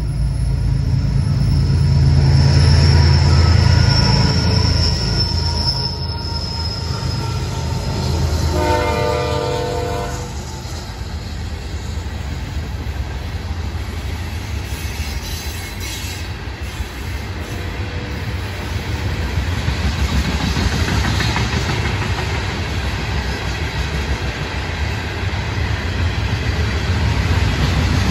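Florida East Coast freight train passing: the GE ES44C4 diesel locomotives run loudest in the first few seconds, with a high wheel squeal. A short blast of the multi-chime horn sounds about nine seconds in, then loaded hopper cars roll by with a steady rumble and clatter.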